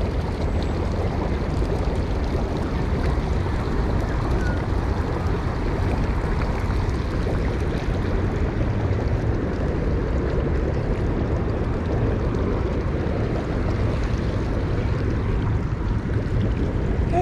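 Splash-pad fountain jets arcing onto wet stone paving, making a steady rush of falling water with a heavy low rumble.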